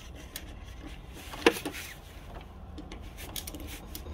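Light clicks and rubbing from handling a screw and a plastic clip on the truck's hood trim, with one sharper click about a second and a half in.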